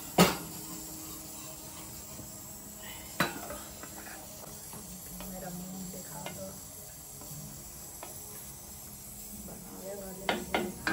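Kitchen utensil clinks over a quiet steady background: one sharp knock just after the start, another about three seconds in, light taps of a ladle in a pan around the middle, and two quick clinks of a spoon against a ceramic mug near the end.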